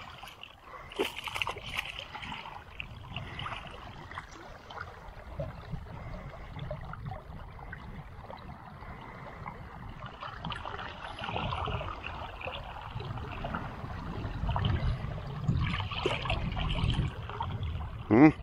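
Water splashing as a small hooked fish thrashes at the surface while being drawn in, with a few sharp splashes in the first couple of seconds, then water lapping and a low rumble that grows through the second half.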